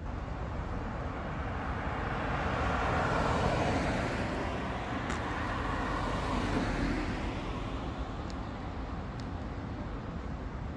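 A car driving past close by on the road, its tyre and engine noise swelling to a peak midway and then fading, over a steady low traffic rumble.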